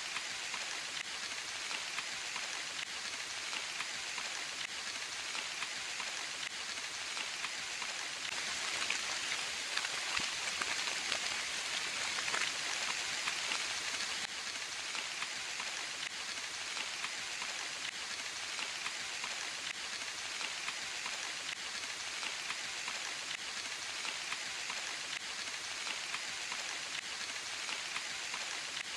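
Steady rain in a forest: a dense even hiss of falling rain with many small individual drop ticks, swelling a little about a third of the way through.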